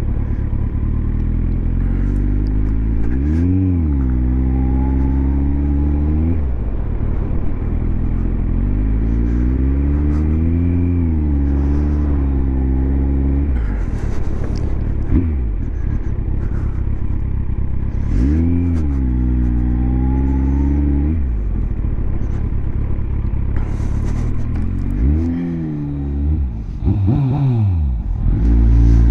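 Kawasaki ZZR1400's inline-four engine heard from the saddle on the move: the revs climb and fall away about five times as the throttle is opened and closed, over steady wind noise.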